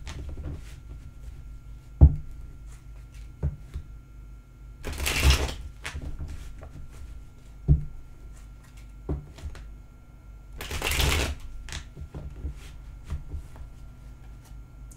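A deck of tarot cards being shuffled by hand: two rustling bursts about a second long, around five and eleven seconds in, with a few sharp taps of cards against the table in between.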